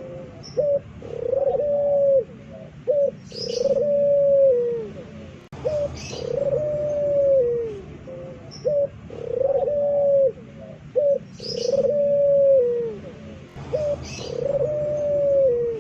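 A puter pelung, a long-voiced cagebird strain of Barbary dove, cooing. It repeats one phrase about six times: a short note, then a long drawn-out coo that falls in pitch at its end.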